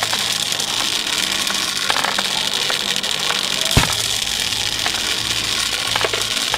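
Sound effect of a mass of small balls pouring and clattering into a pile: a steady, dense rattle over a low hum, with a sharp knock near four seconds in.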